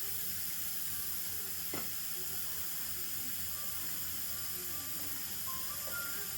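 Steady hiss with a low hum from running dental operatory equipment, and one faint click about two seconds in.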